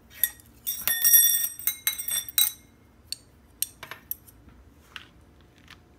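Metal cutlery clinking against ceramic dishware: a quick run of ringing clinks in the first two and a half seconds, then a few lighter taps.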